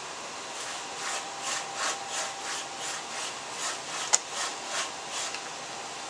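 Tanned coyote hide being pulled back and forth over an upright breaking stake: even rasping strokes, about three a second, with one sharp click about four seconds in. The breaking softens the drying hide by pulling its fibers apart.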